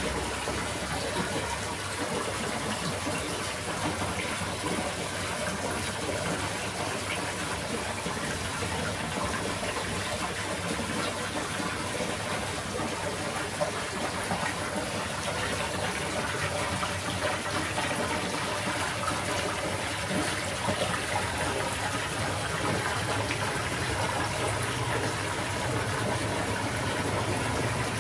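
Running water, a steady unbroken gushing rush.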